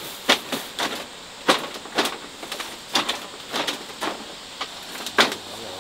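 A string of sharp, irregular knocks or taps, about two a second, a few of them louder than the rest.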